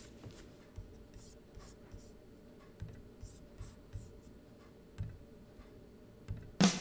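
Quiet room tone with faint, scattered soft rustles and scratches, and a sharper click near the end.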